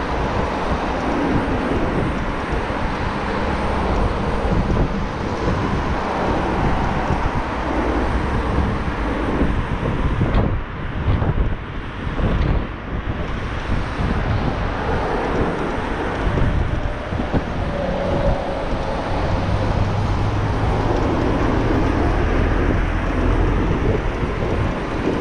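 Steady rush of wind and road noise from an electric scooter riding in traffic, with cars running alongside. The noise dips briefly a little before halfway through.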